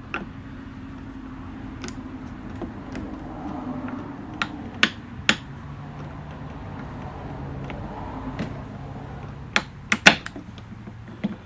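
Irregular sharp clicks and taps of hand work on a motorcycle's handlebar throttle housing as the throttle cables are worked free, with a quick cluster of clicks near the end. A low steady hum runs underneath.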